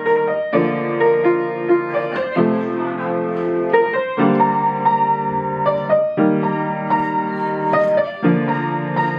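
Background piano music: slow, sustained chords that change every second or two.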